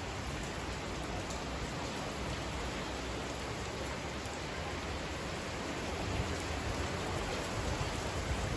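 Heavy rain falling steadily on the covered veranda and the lake during a thunderstorm, with a low rumble building near the end.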